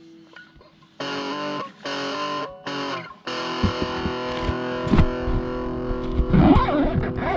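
Background music: distorted electric guitar chords, beginning about a second in with a few short chords, then held chords over a steady beat from about three seconds in.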